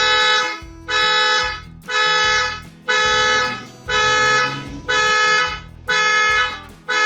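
Car alarm sounding through the car's horn: a steady run of honks about once a second, each a little over half a second long.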